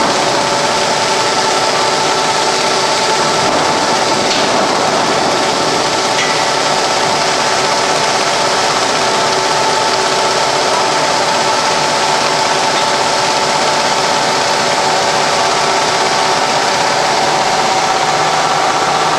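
GM-550 automatic packaging machine running at a constant pace: a steady mechanical hum made of several held tones over a continuous hiss of moving parts.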